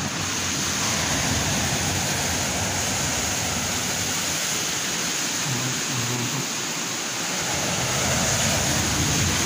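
Sea waves breaking and washing against a rocky shore: a steady rushing noise of surf, a little louder near the end.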